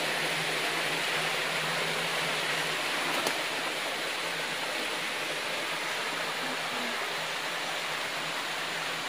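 Steady rush of flowing water, with a faint click about three seconds in.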